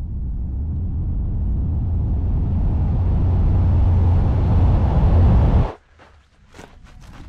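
A deep, low rumble that swells steadily louder for nearly six seconds, then cuts off abruptly; a few faint clicks follow.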